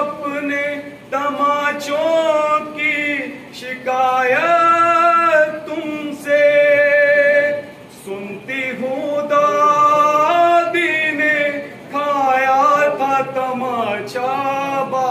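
A man reciting a noha, the Shia Urdu mourning lament, as unaccompanied solo singing: one male voice in long held, wavering phrases with short breaths between them.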